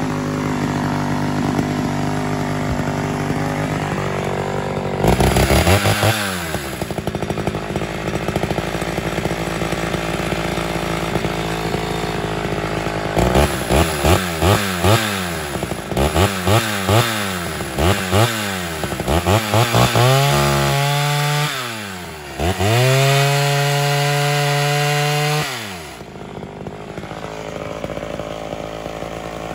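Ported Homelite Super XL Auto two-stroke chainsaw idling, then revving up about five seconds in and running steadily for several seconds under load in a cut. It then gives a quick run of about seven throttle blips and two longer full-throttle revs, and drops back to idle near the end.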